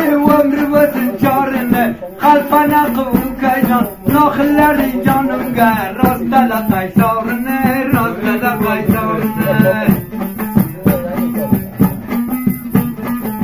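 Dambura, the Afghan two-string long-necked lute, strummed in a fast, even rhythm, accompanying a man singing a folk song. The voice drops out about ten seconds in while the strumming carries on.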